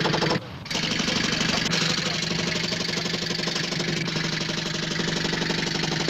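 Pneumatic jackhammer hammering rapidly while its air compressor's engine runs, with a short break about half a second in.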